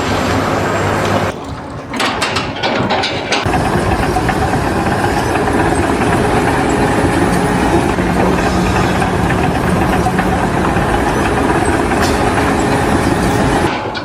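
A large engine running steadily, loud and noisy, with a short break about a second in.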